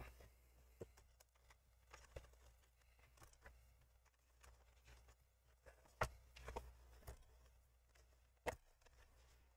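Faint, scattered clicks and knocks of hands handling and prying at a Dell laptop's plastic bottom cover, the loudest about six seconds in, over a low steady hum.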